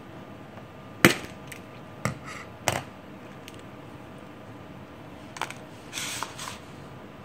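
Three sharp plastic clicks and snaps from handling a hard plastic equipment case and the zip-tie seals on its latches, the first the loudest, then a smaller click and a brief rustle of a paper shipping document near the end.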